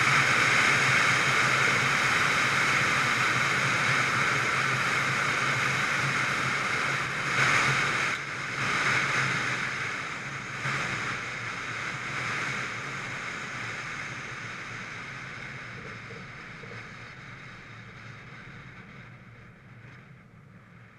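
Wind rush and road noise from a classic Oldsmobile Cutlass driving, picked up by a hood-mounted camera, fading gradually away.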